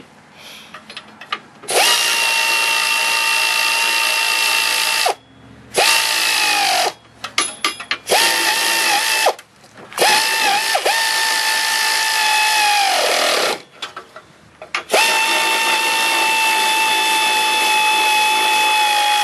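Power ratchet running hitch bolts up into the frame's welded nuts: five runs of a steady motor whine, the longest about four seconds, each winding down in pitch as the trigger is let go, with brief dips as the bolts take load. Small clicks of handling come between the runs.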